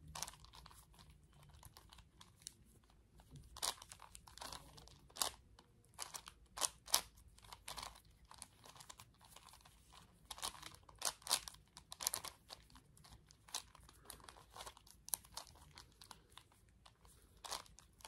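Plastic clicks and clacks of a 5x5x5 Rubik's cube's layers being turned by hand, coming irregularly in uneven runs of several turns with short pauses between.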